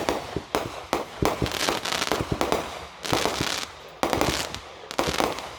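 Fireworks going off: a rapid, irregular series of sharp bangs, several followed by a brief crackling hiss.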